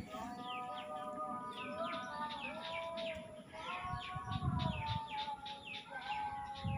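Background music of held, slowly shifting chords, with quick falling bird chirps repeating a few times a second over it.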